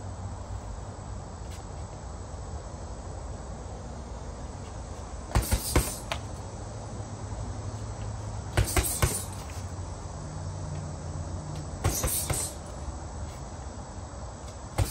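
Punches landing on a heavy bag in three quick bursts of about three hits each (jab, cross, hook), the bursts about three seconds apart.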